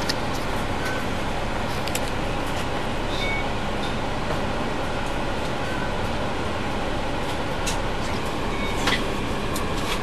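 Bus diesel engine and gearbox running steadily under way, heard from inside the bus near the transmission, with a few light clicks and rattles.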